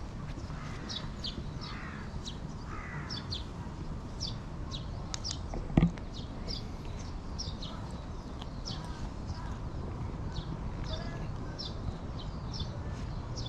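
Birds calling outdoors: short high chirps repeat several times a second throughout, with a few harsher, lower calls in the first three seconds. A single sharp thump comes about six seconds in.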